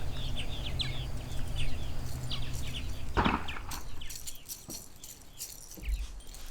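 Birds chirping: many short, quick high calls, with a brief louder sound about three seconds in and a low steady hum under the first half.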